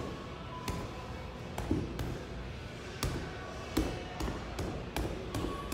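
Boxing gloves punching a Century heavy bag: a string of about nine sharp smacks at an uneven pace, roughly two a second.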